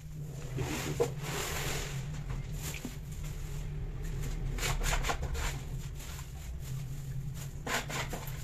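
Female cat growling low and steadily at the male, with a long hiss starting about half a second in and short scuffs or rustles around five and again around eight seconds.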